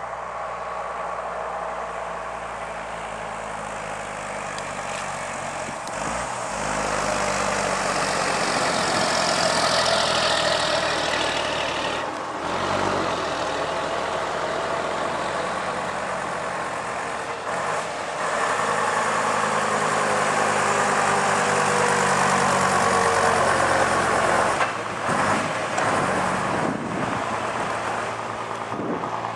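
Vintage double-decker buses' diesel engines running as the buses drive by one after another, the engine sound swelling as one draws near about seven seconds in. The sound changes abruptly a few times.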